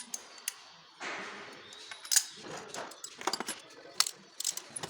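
Hand tools clicking and clinking against metal while ignition coils and spark plugs are removed from a car engine, in irregular sharp knocks. There is a short rush of noise about a second in and the loudest click just after two seconds.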